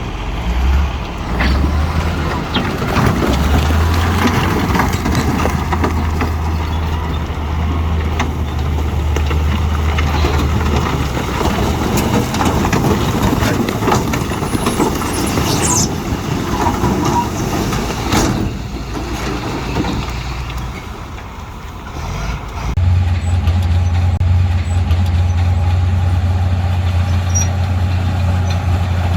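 Heavy diesel earthmoving machinery at work: a big diesel engine drones steadily under load, with dense clanking and rattling over it. The sound eases off a little past the middle, then the engine comes back stronger.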